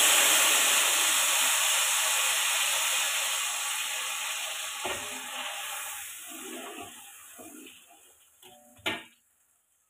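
Blended tomato and chilli paste sizzling in a little hot oil in a wok, loud at first and fading away over several seconds as it cooks. A few knocks of a spatula against the wok come in the second half.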